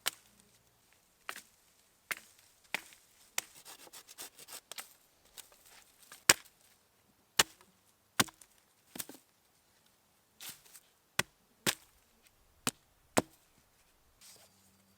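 A series of sharp knocks and cracks at irregular intervals, some louder than others, with quiet in between.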